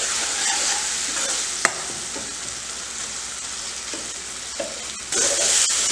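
Tomato-onion masala sizzling in a kadai while a steel ladle stirs and presses the softened tomatoes, with one sharp clink of the ladle on the pan about a second and a half in. The sizzle grows louder near the end.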